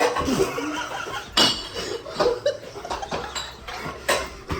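Utensil scraping and clinking against a mixing bowl while cake batter is mixed, with sharp clinks about a second and a half in and again near the end.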